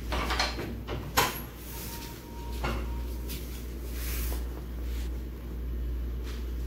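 Handling noises: rustling and several knocks, the loudest a sharp knock about a second in, over a steady low hum.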